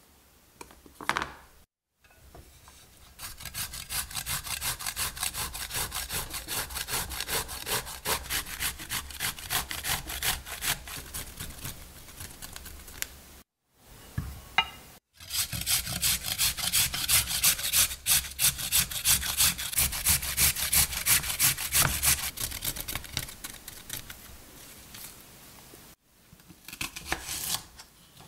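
Vegetables (zucchini, then peeled potatoes) rubbed in rapid, regular strokes against a flat metal hand grater, each stroke a rasping scrape. The grating comes in two long runs with a short break between them.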